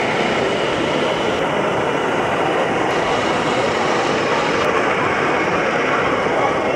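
A 1:16 scale radio-controlled KV-1 model tank driving through mud and shallow water with a trailer in tow: a steady, even mechanical running noise.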